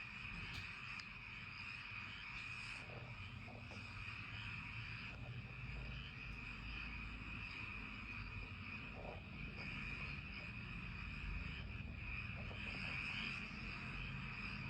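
Countryside night chorus of insects and frogs: a steady high trilling throughout, with a few short faint calls and a low rumble underneath.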